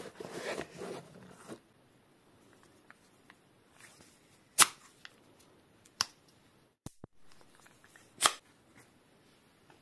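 A hand rustling inside a fabric bicycle saddle bag, then a few sharp clicks as a Spelli mini hand pump is handled and its end cap taken off, two of them louder than the rest.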